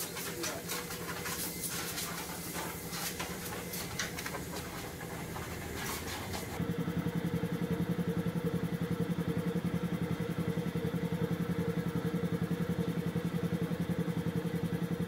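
An engine idling. For the first part, a string of sharp clicks and knocks sounds over its low hum. About halfway through, the engine sound becomes louder and steadier, with an even, rapid pulse.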